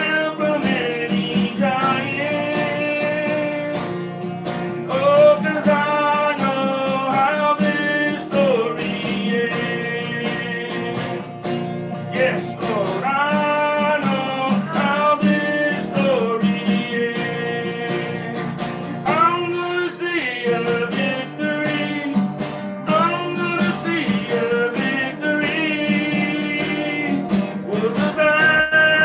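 A worship song sung by a man accompanying himself on a strummed acoustic guitar, with sung phrases over a steady strumming rhythm.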